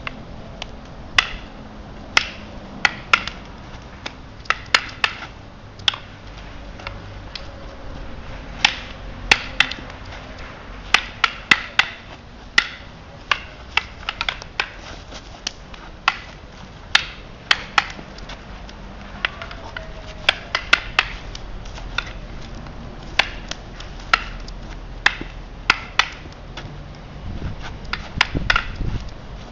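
Arnis sticks clacking sharply against each other in fast strike-and-block exchanges: irregular knocks, often in quick pairs or runs of three or four, with short pauses between exchanges.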